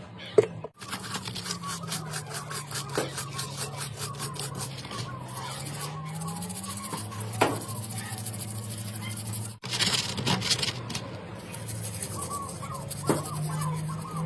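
Rapid rhythmic rubbing or rasping strokes of hand work over a low hum. The sound cuts out abruptly twice.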